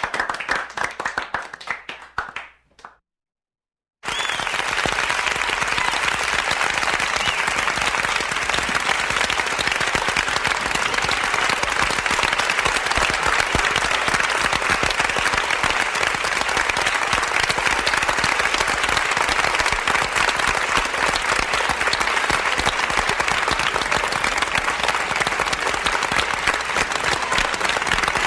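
A medium-sized crowd applauding indoors: the clapping thins out and fades over the first couple of seconds, stops dead for about a second, then a fresh round of dense, steady applause starts suddenly and carries on evenly.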